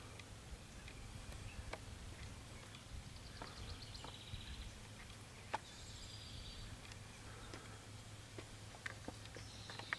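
Quiet outdoor ambience: faint bird chirps and short trills, a few light clicks, over a low steady hum.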